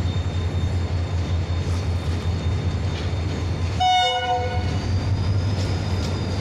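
Pakistan Railways diesel-electric locomotive drawing a passenger train into the station, its engine a steady low rumble, with one short horn blast of under a second about four seconds in.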